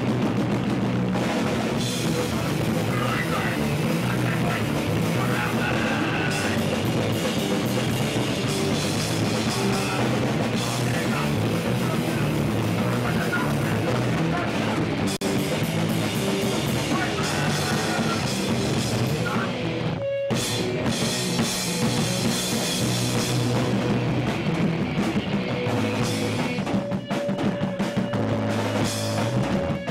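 Hardcore punk band playing live in a small room: distorted electric guitar, bass guitar and a pounding drum kit.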